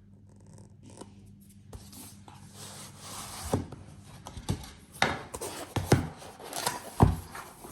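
The sealing tape on a cardboard box is being cut and the box worked open: scratchy cutting and rubbing that builds up, with about five sharp snaps in the second half.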